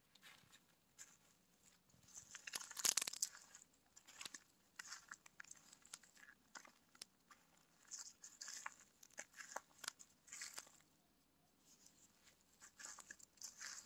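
Soft, irregular rustling and crunching of dry leaves and twigs underfoot, loudest for about a second near three seconds in.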